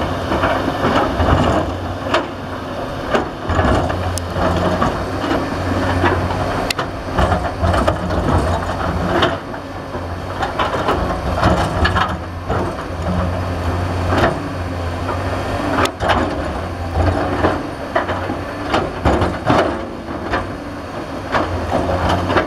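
Diesel engines of a Cat 320D excavator and a loaded Isuzu Elf dump truck running steadily, with frequent sharp knocks and clatters of rock and soil as the excavator works and the truck pulls away over the rubble.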